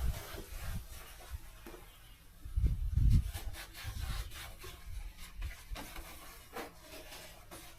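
Rubbing and scraping with scattered clicks, and a louder low rumble about two and a half seconds in.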